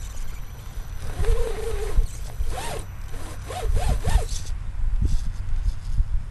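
Electric motor and drivetrain of an Axial SCX10 RC rock crawler whining as it works through loose dirt. The pitch wavers at first, then rises and falls four times in quick succession with short throttle bursts, over a constant low rumble.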